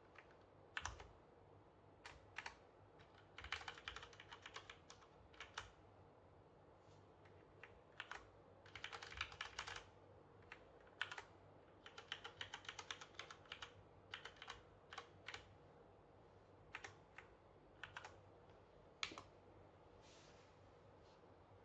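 Ajazz AK60 mechanical keyboard with Cherry MX Brown switches and an aluminium top plate being typed on. Quick runs of keystrokes alternate with single key presses and short pauses.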